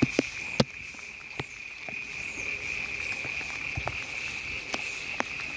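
A steady high-pitched chorus of insects chirring, with light rain falling and scattered sharp taps and ticks, the loudest of them within the first second.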